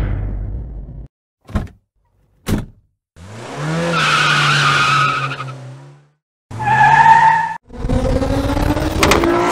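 Car sound effects played by a LEGO light kit's sound unit, triggered from its remote. There is a short low rumble, then two clicks, then an engine revving up and holding for a few seconds, then two more shorter bursts of engine and tyre sound with rising pitch.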